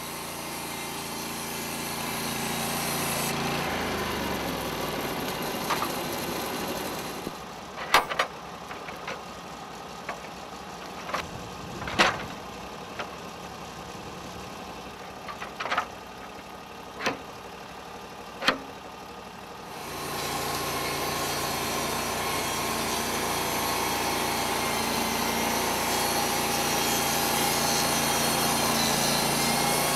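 Portable band sawmill running steadily, then winding down about four seconds in. A quieter stretch follows with several sharp knocks and clanks as the log is turned and dogged by hand. About twenty seconds in the mill comes back up to a steady run.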